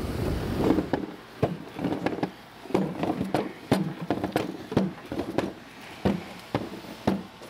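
Irregular metal clicks and knocks of hand tools working on the bearing caps of an engine's exposed crankshaft, about one every half second to a second.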